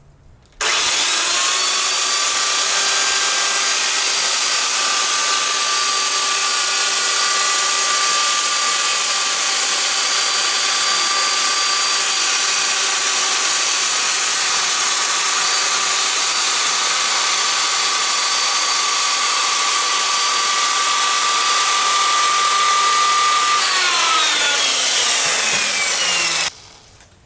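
1970s–80s JCPenney circular saw with a new Freud 40-tooth blade, running and cutting through veneer clamped between strips of OSB. It starts about half a second in and runs steadily with a high whine. The whine falls in pitch in the last couple of seconds before the sound stops abruptly.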